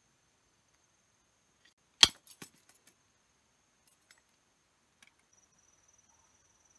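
A knife working bamboo: one sharp crack about 2 seconds in, followed by a quick rattle of lighter clicks, then a few faint taps. A faint steady high insect trill runs underneath.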